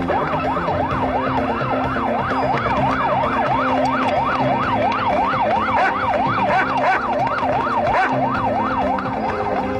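Police siren in a fast yelp, its pitch sweeping up and down about three times a second.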